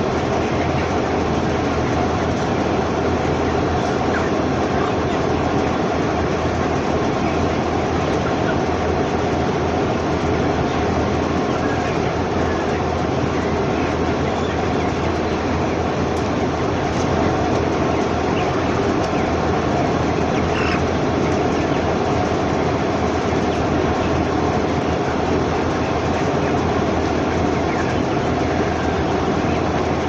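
Steady, dense din of a large flock of three-week-old broiler chickens in a closed shed, with a few faint higher peeps, over a constant low hum.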